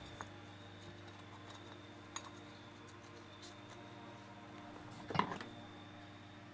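Light metallic clinks of small metal parts and hand tools being handled, a few isolated ticks and a brief clatter about five seconds in, over a faint steady hum.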